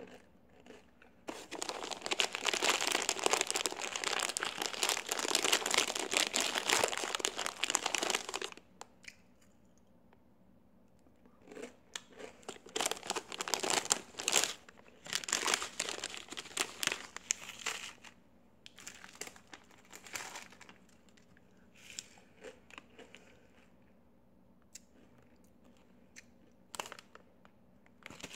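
Doritos chip bag crinkling for about seven seconds, then more irregular bursts of bag crinkling and crunching as the chips are handled and eaten.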